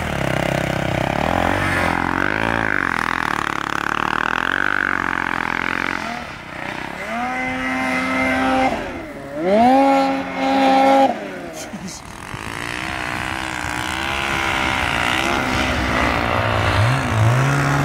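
Two-stroke turbo snowmobile engines revving up and down as the sleds ride through deep powder, with a loud, steady high-rev stretch about eight to eleven seconds in and a sled passing close near the end.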